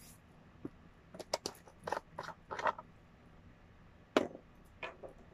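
Scattered clicks, taps and short rustles of a plastic bottle of castile soap and a small metal measuring cup being handled, with one sharp click about four seconds in.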